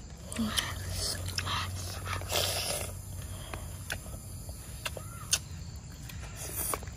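Close-up eating sounds: a child chewing grilled fish and sucking it off the fingers, with short wet smacks, then several sharp lip-smacks and clicks.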